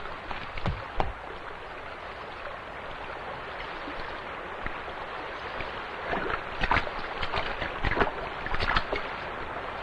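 Shallow river water flowing steadily over stones, with several splashes from about six seconds in as someone wades barefoot.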